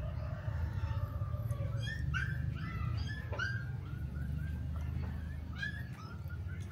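Young chained dog whining: a drawn-out whine, then a string of short, high whimpering yelps, over a steady low rumble.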